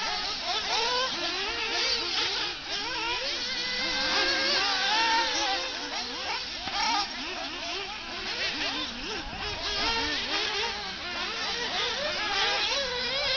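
Several 1/8-scale nitro RC buggy engines racing, each rising and falling in pitch as it revs up and backs off. The high-pitched buzzes overlap without a break.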